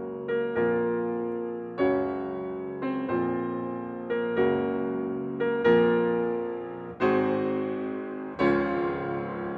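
Background piano music: slow, sustained chords struck about once every second or so, each fading before the next.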